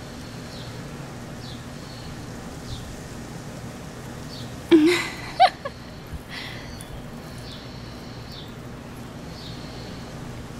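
Outdoor background: a steady low hum with faint short high chirps every second or so. About halfway it is broken by a loud brief wavering call and a couple of sharp sounds.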